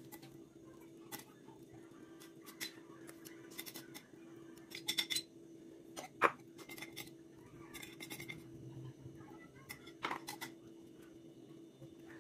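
A spoon scraping and clicking against a ceramic plate as a saucy mixture is scooped off it, with one sharp knock about six seconds in, over a steady low hum.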